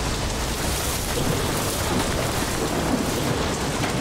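Steady, loud rushing of water: a dense, even hiss with no break.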